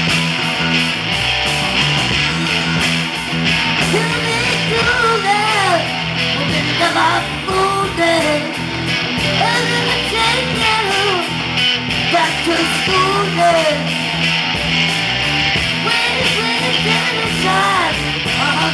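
Live rock band playing: electric guitars, bass and drums. From about four seconds in, a bending, wavering lead melody rides over the top.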